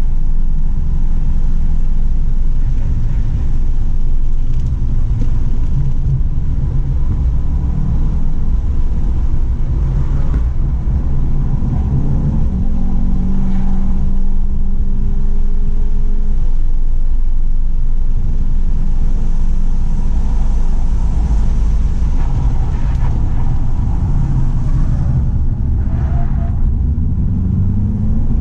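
A Stage 2-tuned 2017 Volkswagen GTI's turbocharged 2.0-litre four-cylinder engine running hard on track, its pitch rising and falling several times as it climbs through the revs and backs off. Heavy low road and drivetrain rumble runs under it throughout.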